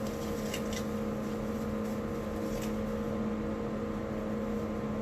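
Steady mechanical hum of a running kitchen appliance or fan, with a few faint light knocks.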